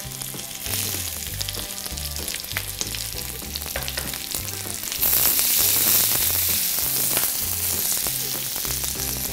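Chopped onions, garlic and green and red bell peppers sizzling in hot oil in a stainless steel wok, with occasional small clicks. The sizzle grows louder about five seconds in.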